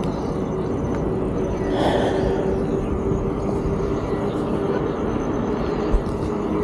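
Wind rumbling on the camera microphone with road noise from a moving bicycle, under a steady low hum.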